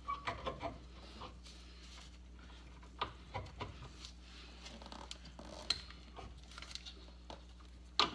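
Faint, scattered clicks and light knocks of metal suspension parts being handled as the front leaf spring eye is lined up with the spindle bracket and a bolt is worked through the new bushings, with a small cluster of clicks near the start.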